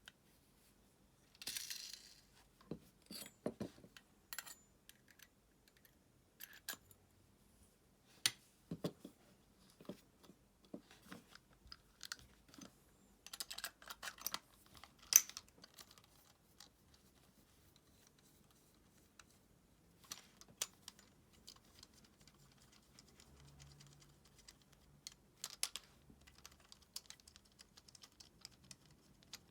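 Irregular light clicks, taps and rustles of small metal reel parts and hand tools being handled during work on an Abu Garcia Ambassadeur 5500C baitcasting reel, with one sharper tap about halfway through.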